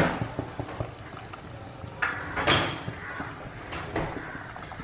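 Mutton masala and water starting to boil in an open pressure cooker on a gas hob, bubbling steadily, with two brief clatters of metal cookware, one at the start and one about two seconds in.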